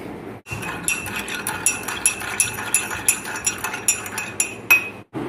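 Metal teaspoon stirring sugar into a mug of milk tea, clinking repeatedly against the sides of the ceramic mug, several ringing clinks a second.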